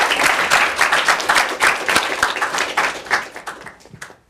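Audience applauding, many hands clapping together, thinning out and dying away in the last second or so.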